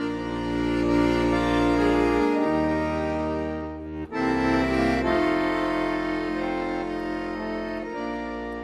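Accordion playing the instrumental introduction to a Swiss folk yodel song: held chords over steady bass notes, in two phrases with a brief break about four seconds in, fading near the end.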